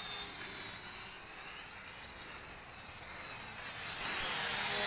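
Feng Niu FN668 flying-car quadcopter's small motors and propellers whining in flight, high-pitched and wavering as the throttle changes, fainter in the middle and louder about four seconds in.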